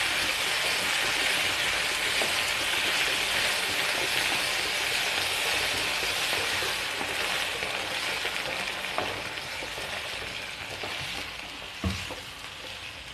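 Black chickpeas with onion and tomato masala sizzling in an oily pan as water is poured in and a wooden spatula stirs them. The sizzle fades over the last few seconds as the pan fills with water. There is a single knock near the end.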